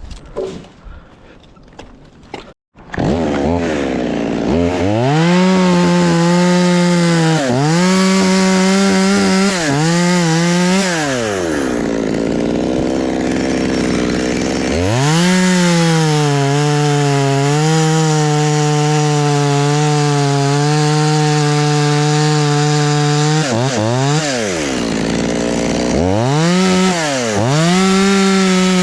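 Two-stroke chainsaw revving up about three seconds in and running at full throttle in long stretches, its pitch sagging briefly now and then. It drops back to a low idle for a few seconds near the middle before revving up again.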